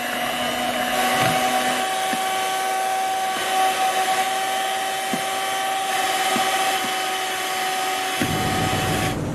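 Electric mixer running at a steady medium speed, its beaters whipping eggs in a glass bowl to the ribbon stage for a genoise sponge: a steady motor whine over a rushing hiss.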